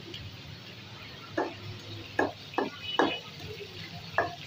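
About five short wooden knocks at uneven intervals from a thick wooden kitchen pestle being struck and worked, over a steady low background hum.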